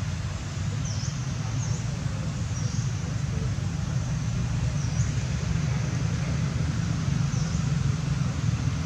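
Steady outdoor background noise: a constant low rumble with a faint hiss over it, and short, faint high chirps every second or two.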